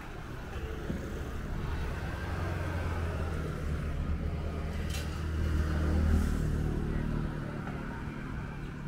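A motor vehicle passing close by: a low engine rumble that swells, is loudest about six seconds in, then fades away.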